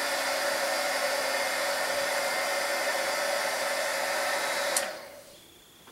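Handheld craft heat gun blowing steadily with a steady hum, warming the shell pieces so the melted crayon wax will flow down between them. It switches off with a click near the end and the fan winds down.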